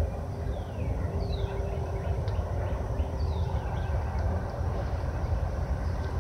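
Steady low outdoor rumble, with a few short high chirps falling in pitch.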